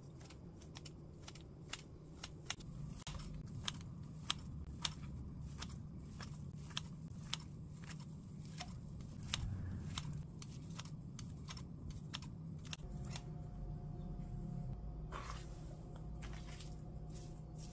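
Kitchen scissors snipping through a rolled thin egg omelette sheet: a run of sharp snips, one or two a second, that stop about three-quarters of the way through. A brief rustle follows near the end as a sheet of dried seaweed is handled.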